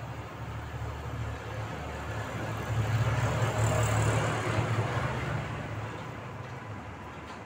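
Low engine rumble of a passing motor vehicle, swelling a few seconds in and fading away.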